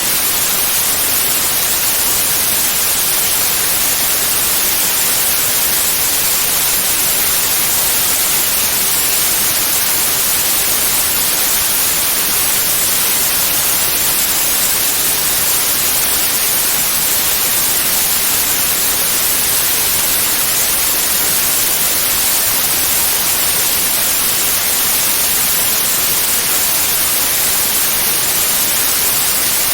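Steady white noise for tinnitus masking: an even, unchanging hiss, brightest in the high range, with no tone, waves or breaks.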